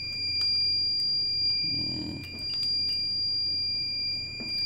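Phoenix infant warmer's alarm sounding a steady high-pitched tone. It is a low-temperature alarm: the baby's measured temperature is still below the 35 °C set point.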